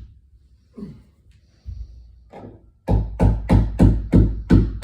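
Hammer striking wood: a few spaced blows, then a quick run of about three blows a second, knocking a pulled-forward door jamb back straight.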